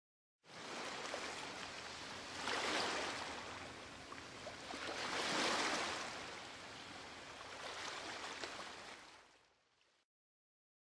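Sea surf washing in, a rushing hiss that swells three times and fades out near the end.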